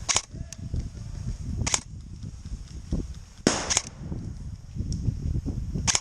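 Airsoft gun firing single shots: about five sharp cracks at uneven spacing, two of them close together about halfway through.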